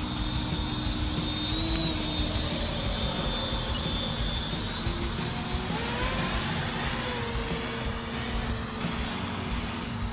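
Electric ducted fan of an E-Flite 70mm F-16 RC jet whining in flight. The high whine jumps up in pitch about six seconds in, then slowly falls again.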